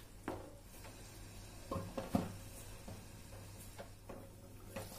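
A handful of light knocks and clatters from a wooden spatula against a frying pan and a stainless steel lid being set on the pan, the loudest about two seconds in, over a faint low hum.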